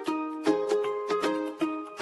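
Background music: a light, upbeat tune of quickly plucked notes on a ukulele-like string instrument.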